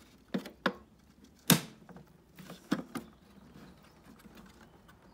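Plastic tail-light cluster of an Audi A3 8P clicking and knocking as it is pushed and worked into its recess in the body, its retaining clips being pressed home: several short, sharp clicks, the loudest about a second and a half in.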